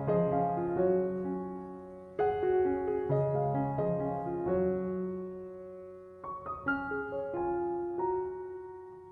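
Background piano music: notes and chords struck and left to fade, several times over.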